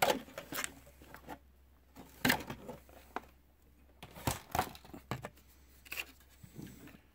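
Blue painter's tape being peeled off a clear plastic RC car interior, heard as several short tearing sounds, amid handling of the plastic parts.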